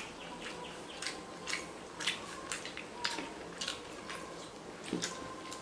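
Noodle-eating sounds at close range: forks clicking and scraping on plastic plates and mouths chewing, as irregular short sharp clicks about two a second.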